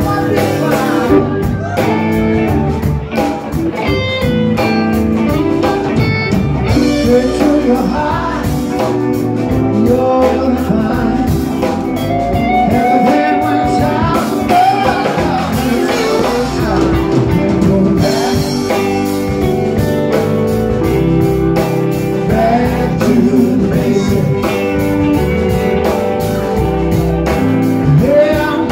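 Live band playing a blues-rock song on electric guitars and drums, with a voice singing over it at times.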